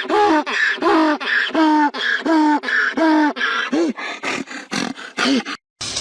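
A cat meowing over and over in quick succession, about two to three short rising-and-falling meows a second with breathy noise between them. It stops suddenly near the end.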